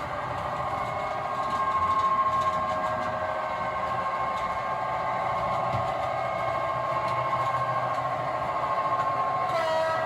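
Model locomotive running on the layout: a steady mechanical whine with a low hum, shifting a little in pitch near the end.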